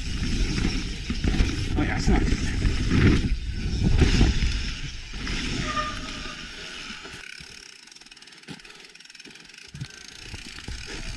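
Mountain bike riding over a rough, rocky trail: tyres and frame rattling with scattered knocks, over a low rumble of noise. It drops to a much quieter stretch about seven seconds in, with only a few clicks.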